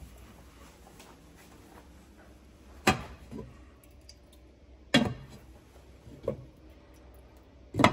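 Pots and a glass pot lid clinking and knocking on a glass-top stove: four sharp clinks, one to two seconds apart.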